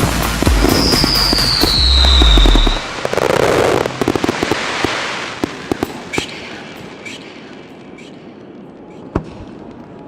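Fireworks display: dense crackling and bangs of aerial shells with a high falling whistle, thinning out after about four seconds to a fading crackle, a few scattered pops and one last sharp bang near the end.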